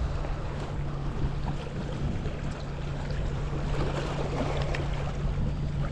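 A steady low hum under an even wash of outdoor noise, with a few faint clicks.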